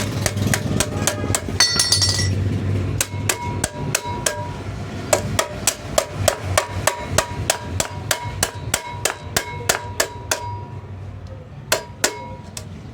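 Hammer tapping repeatedly on a refrigerator's sheet-metal body to beat out dents, about three blows a second, many of them leaving a brief metallic ring. The blows stop shortly before the end, then come twice more.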